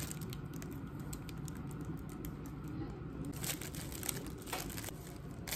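A small knife cutting and prodding a soft pastry on a sheet of plastic wrap: light, irregular clicks and crinkles of the plastic.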